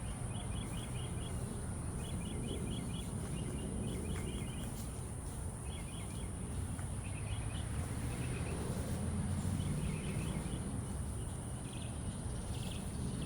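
A bird chirping in quick groups of four or five notes, again and again, over a steady high thin whine and a constant low rumble of outdoor background noise.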